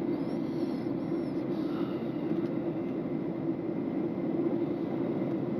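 Steady cabin noise of a Boeing 737 airliner in cruise, heard inside the cabin: an even rush of jet engines and airflow with a deep hum underneath.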